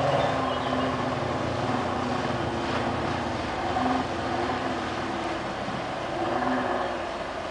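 Kawasaki 800 SX-R stand-up jet ski's two-stroke engine running at a fairly steady pitch that wavers a little.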